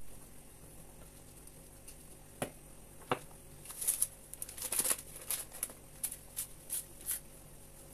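Two soft taps, then a run of short crinkling rustles from gloved hands handling a baking powder sachet over the mixing bowl.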